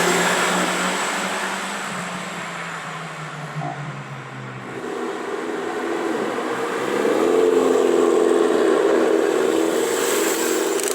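A car engine pulling away, its sound fading over the first few seconds. Then a second car's engine rises in pitch as it accelerates past, loudest about seven to nine seconds in.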